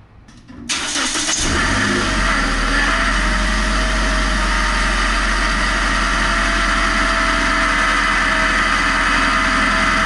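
Car engine running with a steady high whine from a failing water pump whose ball bearings are worn out. The sound comes in suddenly less than a second in.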